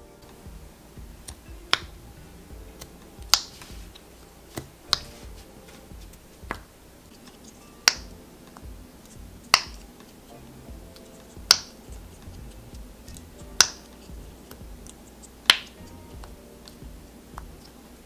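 Bubbles of a silicone pop-it bracelet pressed through one at a time by fingers, each giving a sharp pop, about one every one to two seconds and uneven in loudness.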